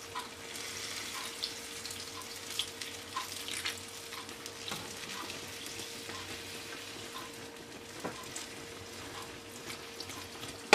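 Warm water poured from a glass jug in a thin stream over a baked su böreği in a glass baking dish, giving a steady hiss with many small crackles as the water soaks into the pastry.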